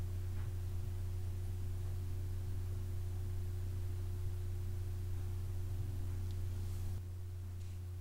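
Steady low electrical hum with a fainter, higher steady tone above it; it drops slightly in level about seven seconds in.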